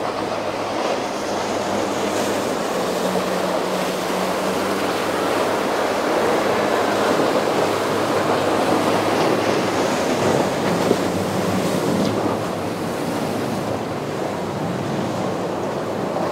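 Surf and churning whitewater with a low, steady boat-engine drone underneath.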